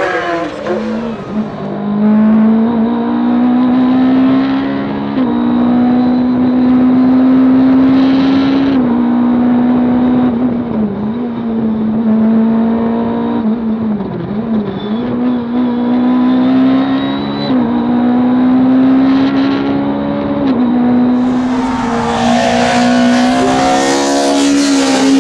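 Racing car engine at full throttle on a hillclimb, working up through the gears: the engine note rises steadily, then dips at each upshift, every three to four seconds or so. Near the end the sound gets much brighter and fuller as the car comes close past.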